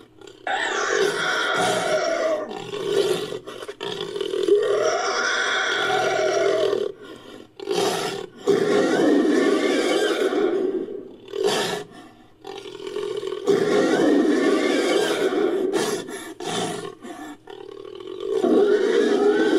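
Made-up creature sound effect: a series of harsh animal roars and growls, several lasting two to three seconds, separated by short breaks. They are edited from hyaenodon and Nanotyrannus sound effects.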